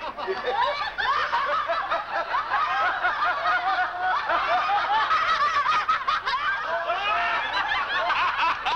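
A group of people laughing together, many voices overlapping at once.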